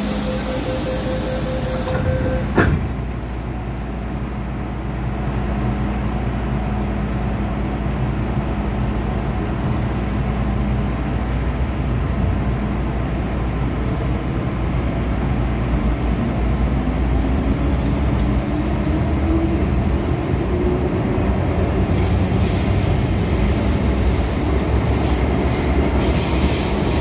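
MTR Tseung Kwan O line M-Train heard from inside as it pulls out of a station into the tunnel: a steady wheel-and-track rumble, with a hiss in the first two seconds and a sharp clunk a couple of seconds in. A whine rises in pitch midway, and high-pitched wheel squeal comes in near the end.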